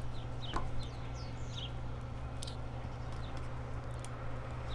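Small birds chirping in short falling notes, mostly in the first two seconds, over a steady low hum, with a couple of faint clicks in the middle.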